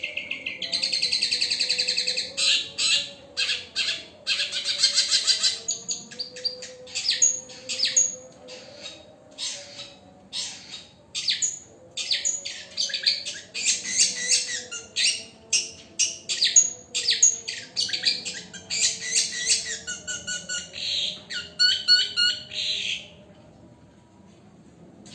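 Long-tailed shrike singing a fast, varied song of rapid chirps, trills and buzzy rattles, full of mimicked songs of other birds. The song stops about 23 seconds in.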